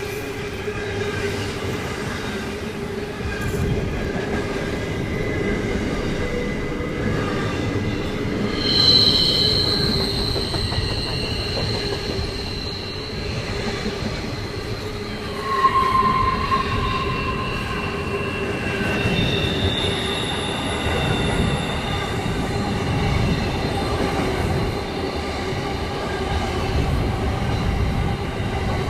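Long freight train's wagons rolling past, a steady rumble with several high wheel squeals, the sharpest starting about nine and sixteen seconds in.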